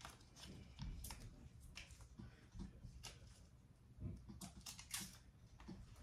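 Faint, irregular light clicks and taps, with a low rumble of room noise underneath.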